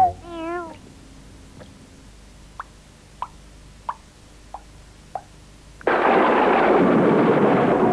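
Cartoon weather sound effects: a short warbling, falling tone, then about six single water drips at uneven intervals, then near the end a sudden loud thunderclap that carries on as a rumbling storm with a falling whistle.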